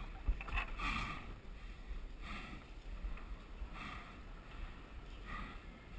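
A tired climber's breathing: about five soft breaths, one every second or so, over a low rumble of wind on the microphone.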